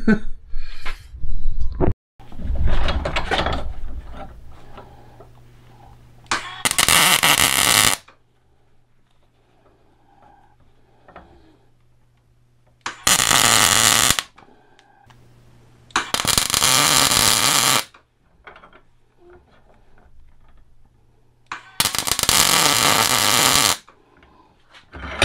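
Wire-feed welder laying short beads: four bursts of steady arc crackle, each about one and a half to two seconds long, with a low hum in the pauses between them. The welds are fixing the loose end knobs back onto a steel bench-vise handle.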